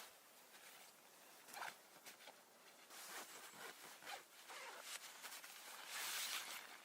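A zipper being worked amid fabric rustling, in quiet, irregular rasping strokes that grow denser and louder toward the end.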